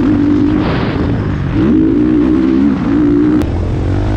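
Motocross bike engine running under throttle, its revs rising and falling several times, over a steady rush of noise.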